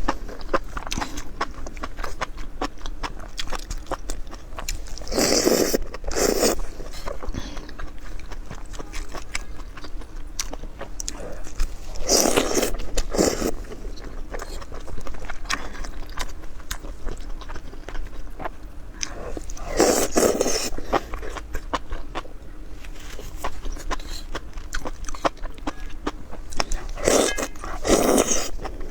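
Close-miked eating: continuous chewing with many small crunching and smacking clicks, and a louder bite or mouthful roughly every seven seconds.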